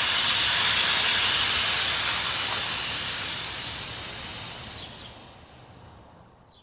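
Produced hissing whoosh sound effect of a radio station ID, steady at first and then slowly fading out over the last few seconds.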